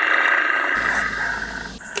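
A long, loud growl from the werewolf character, changing in tone about three-quarters of a second in, followed by a sharp click near the end.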